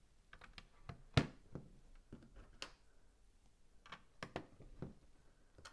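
Plastic LEGO bricks clicking and tapping as pieces are picked up and pressed onto a model: a few scattered short clicks, the sharpest about a second in, with a small cluster about four seconds in.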